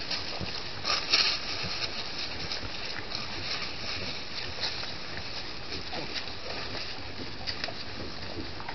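A herd of peccaries foraging on dry leaf litter: scattered rustling and footsteps over a steady hiss, with a louder rustle about a second in.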